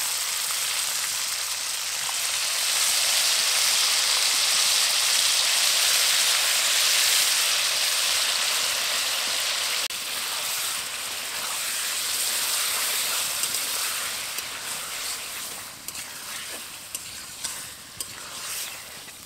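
Marinated chicken pieces sizzling in hot oil in a metal kadai, loudest in the first half and dying down toward the end. In the second half a spatula stirs and turns the pieces, adding light scrapes and clicks.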